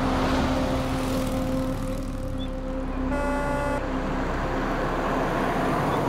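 Road traffic: a motor vehicle passing close by on a road, with a horn sounding once, briefly, about three seconds in.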